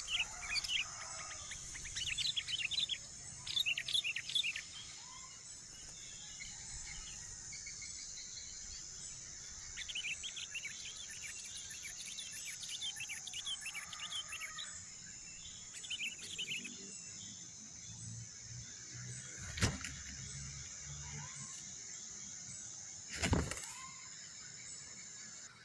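Small birds chirping in short, rapid clusters over a steady, high-pitched insect drone. Two sharp knocks come near the end.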